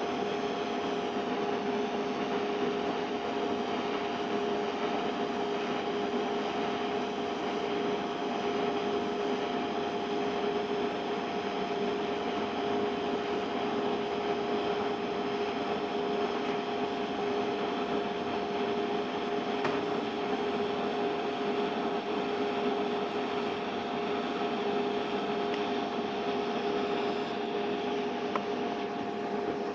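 TIG welding arc burning steadily while filler rod is added: a continuous hiss with a constant buzzing hum.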